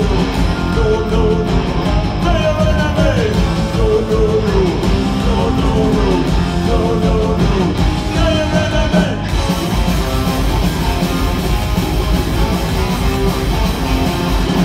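Punk rock band playing live: distorted electric guitars, bass and drums at full volume, with singing over the top.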